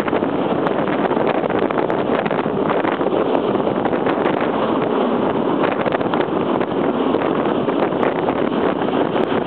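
Chemins de fer du Jura train running, heard from inside at the door: a steady running noise of wheels on rails, with many small clicks through it.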